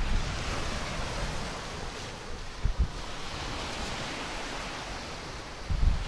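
Sea surf washing onto a sandy beach, with wind gusting on the microphone and a couple of short low bumps about two and a half seconds in.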